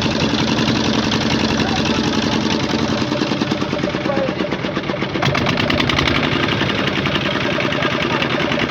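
An engine running steadily with a rapid knocking beat, getting slightly louder and sharper about five seconds in.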